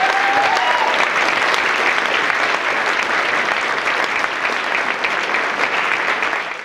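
Audience applauding, then fading out near the end.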